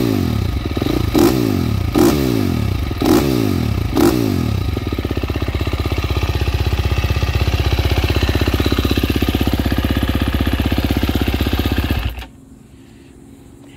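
2023 KTM 350 SX-F's single-cylinder four-stroke engine revved in quick throttle blips, about one a second, each falling straight back, then settling into a steady idle. About twelve seconds in the engine is switched off and cuts out suddenly.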